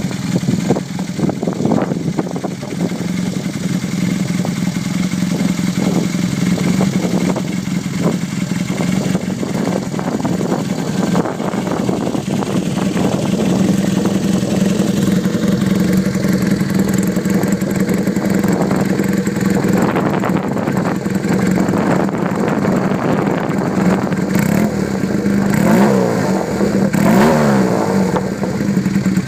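Honda CB250T Hawk's parallel-twin engine running through a Kamikaze-kan exhaust with an extra-large-bore silencer, held at a steady speed for most of the time, then revved up and down a few times near the end.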